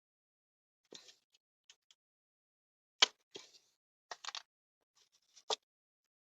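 Scattered short clicks and knocks of small boombox parts being handled and pried at, about ten in all, the loudest about three seconds in.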